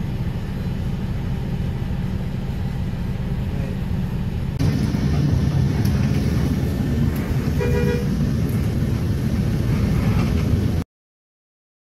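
City bus running, heard from inside the cabin: steady low engine and road noise. A little under halfway it jumps suddenly louder and brighter, a vehicle horn honks briefly about two-thirds through, and the sound cuts off suddenly shortly before the end.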